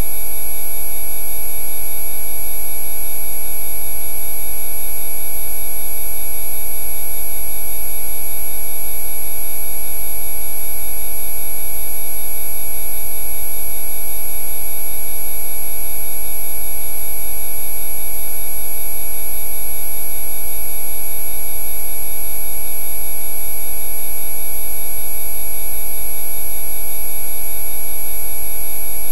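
Synthesised Rife-frequency sound track: many pure sine tones at different pitches layered together, from a low hum to a thin high whine, with no change in pitch or loudness.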